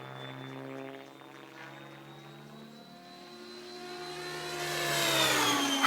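R/C helicopter making a fast pass: its engine and rotor hum steadily, then grow much louder from about four seconds in as it closes in, and the pitch drops as it goes by near the end.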